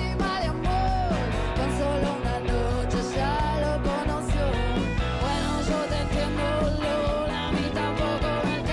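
Live rock band playing: electric guitars, bass guitar and percussion, with a bending, wavering lead melody line over a steady low end.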